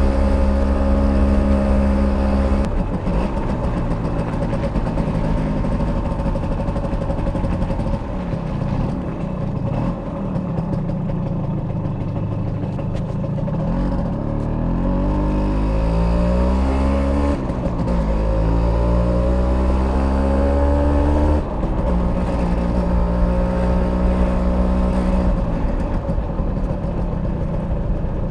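A 1991 Simson S51B moped's stock 50cc two-stroke single-cylinder engine running under way. Its pitch rises and falls with the throttle, with a sudden drop a few seconds in, rising climbs past the middle, and another sharp drop about three quarters of the way through.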